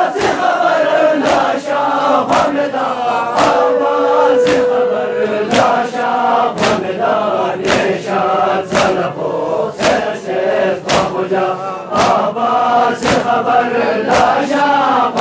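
A crowd of men chanting a mourning lament (noha) in unison, with sharp hand-on-chest slaps of matam roughly once a second, sometimes doubled. About four seconds in, one voice holds a single note for about two seconds.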